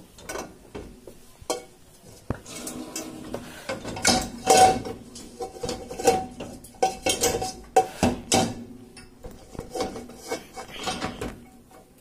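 Metal cooking pots clattering and knocking against the wire racks of a Bosch dishwasher as they are loaded, with a ringing note from the metal between the knocks.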